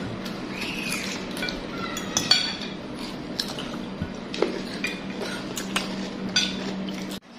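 Metal forks and spoons clinking and scraping against ceramic bowls of noodles, in many short irregular clinks, the loudest about two seconds in. A steady low hum runs underneath.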